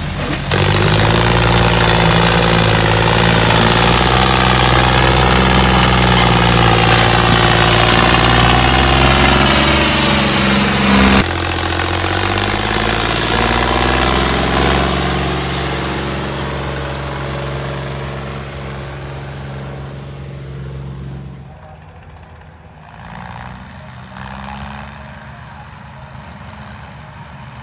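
Loud, steady engine-like running sound with a low hum as the toy tractor hauls a trolley of stones. Its pitch shifts abruptly about eleven seconds in, then it grows quieter and drops off sharply after about twenty seconds.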